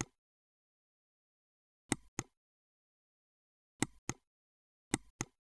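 Computer mouse button clicking: three pairs of short sharp clicks, about two seconds apart, with dead silence between.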